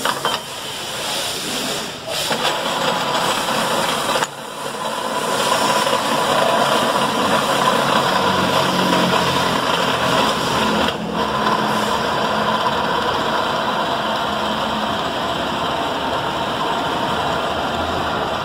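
Kitchen & Wade geared pillar drill running, its motor and gearbox giving a steady mechanical whir. The sound drops briefly about 2, 4 and 11 seconds in, as the speed-selector levers on the gearhead are moved.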